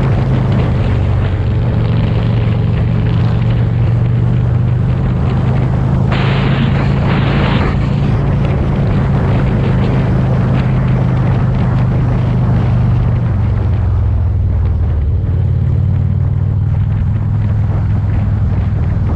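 Motorcycle engine running at a steady cruise with wind rushing past, and a brief louder rush of noise about six seconds in.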